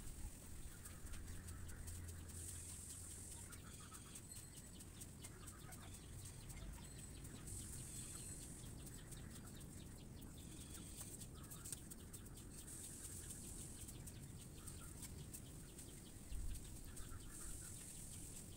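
Faint chickens clucking, with a high buzz that swells and fades every few seconds. A single knock comes about sixteen seconds in.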